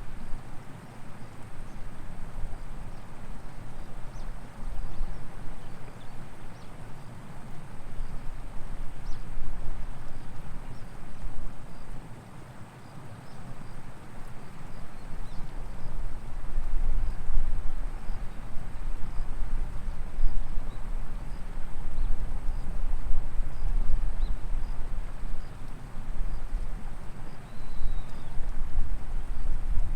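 Outdoor background noise: an uneven low rumble that swells and fades, dipping for a couple of seconds near the middle, with faint high chirps repeating throughout.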